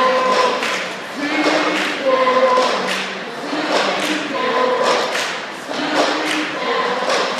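A large group of high school students singing together as a choir, holding long notes that change about once a second over a steady beat.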